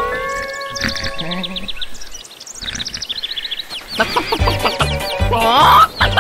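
Cartoon farmyard sound effects: a rooster crowing in the first second, then quick high chirping of small birds. From about four seconds, music with a steady beat comes in under hen clucking and chick peeping.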